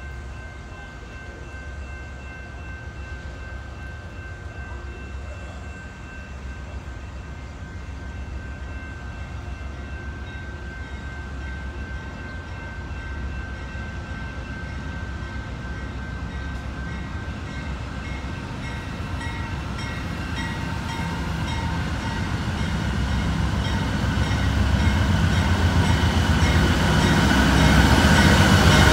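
GE Dash 9-44CW diesel locomotive leading a freight train on approach, its engine and wheels growing steadily louder as it nears. Steady high tones run throughout, and a regular ringing repeats about twice a second from about two-thirds of the way through.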